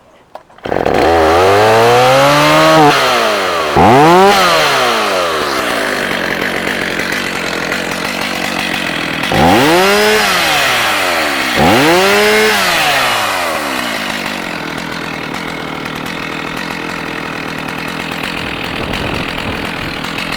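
Stihl MS310 two-stroke chainsaw catching on a cold start about a second in. It is revved up and let fall back four times, then settles into a steady idle.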